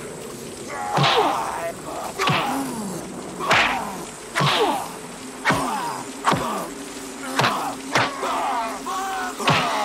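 Movie fight sound effects: about nine punches land, roughly one a second, each followed by a grunt or yell from the fighters, over the steady hiss of heavy rain.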